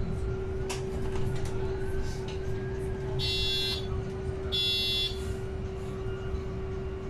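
Inside a moving city bus: steady engine and road rumble with a constant hum, and two short electronic beeps from the bus's signal buzzer a little past the middle, a second or so apart.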